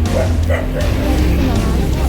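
Background music over a steady low rumble, with a dog barking briefly in the first second.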